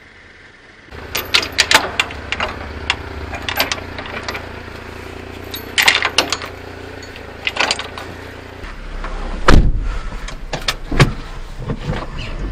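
Metal clanks and rattles of a trailer coupler and safety chains being handled at a mini truck's 2-inch receiver hitch, over the steady hum of the Daihatsu Hijet's 660cc engine idling. About a second and a half before the end the truck's door is pulled shut with a single loud knock, and the engine hum deepens.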